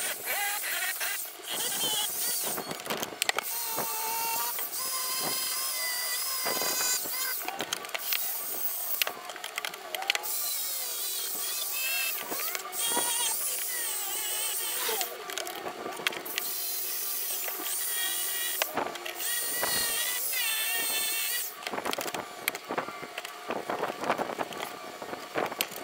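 Electric drill spinning a wire wheel brush against the bottom of a frying pan, scrubbing off rust. It runs in bursts broken by many short pauses.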